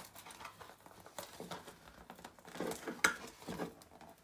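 Fabric Velcro strap being threaded through the slots of a plastic mudguard: light, irregular rustling and scraping, with a sharper plastic click about three seconds in.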